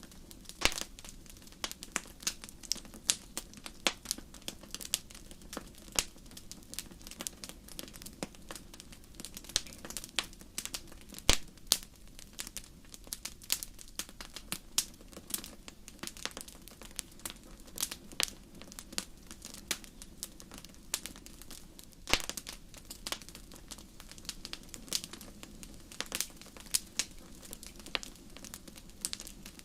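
Wood fire burning in a fireplace: irregular crackling with sharp pops and snaps several times a second, the loudest about eleven seconds in, over a steady low rush of the flames.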